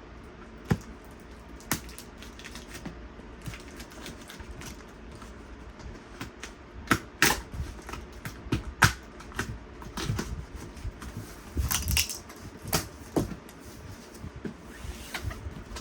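A cardboard shipping box being opened by hand without a knife: irregular clicks, scrapes and rustles of cardboard and packing, busier and louder in the second half.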